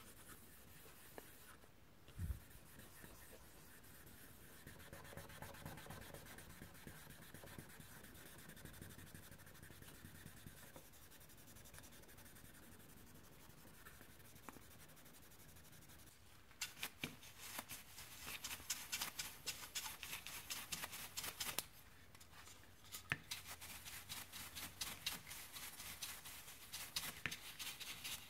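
A cotton pad rubbing over the shroud of an Nvidia Quadro NVS 420 graphics card, soft and even, with a dull knock about two seconds in. Past halfway the rubbing turns brisk and scratchy, in quick strokes, with a short pause about two-thirds through.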